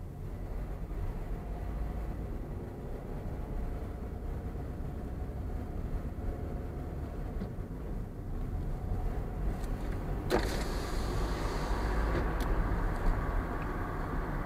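Car driving, heard from inside the cabin: steady low engine and tyre rumble. About ten seconds in, a louder hiss comes in suddenly and keeps going.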